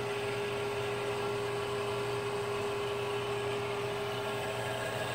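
Steady electrical hum with hiss from a neon sign transformer driving a high-voltage AC discharge through a CO2 laser tube, at about 15 kV, where the tube should run on DC.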